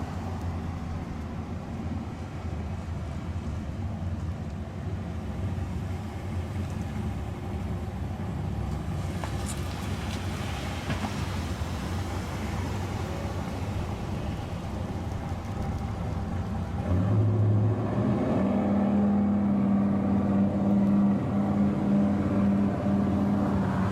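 Motor vehicle engine running in street traffic, with a louder, steady low engine note coming in about 17 seconds in; the siren is not sounding.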